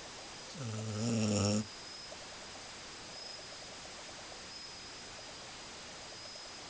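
A sleeping pet snoring: a single pitched snore of about a second, starting about half a second in, rising slightly and cutting off abruptly.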